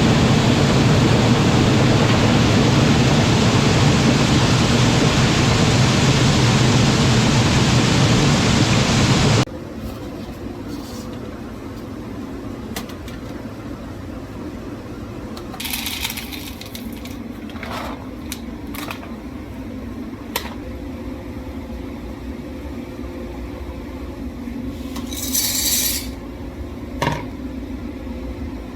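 Loud, steady rushing air noise of a running grain dryer's fan, which cuts off suddenly about nine seconds in. A much quieter steady hum follows, with scattered clicks and a couple of short rustling clatters.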